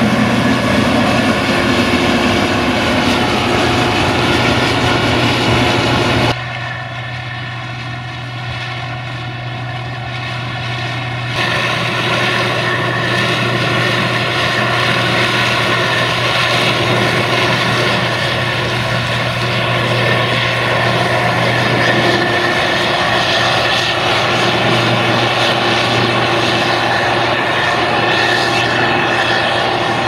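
Case IH 2166 Axial-Flow combine harvesting corn: its diesel engine and threshing machinery run with a steady, loud drone. The sound turns abruptly quieter and thinner from about six seconds in, and comes back full about eleven seconds in.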